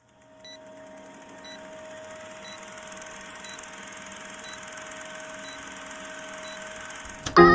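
Old film-projector countdown sound effect: a steady mechanical whirr and hiss with a short high beep about once a second. It cuts to loud music near the end.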